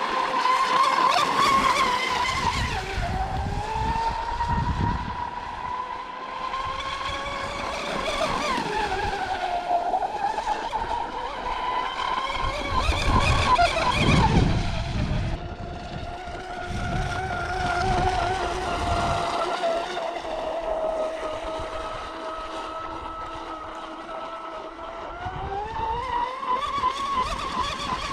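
Traxxas M41 RC racing catamaran's brushless electric motor and propeller whining as the boat runs. The pitch rises and falls with the throttle, sits lower from about halfway through, and climbs again near the end, with low rumbling bursts around four and thirteen seconds in.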